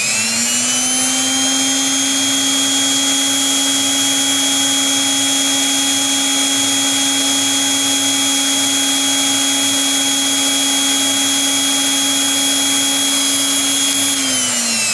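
Electric hand planer's brushed motor, run from a homemade inverter, switched on. It spins up with a rising whine, holds a steady high-speed whine, then winds down with falling pitch near the end as it is switched off.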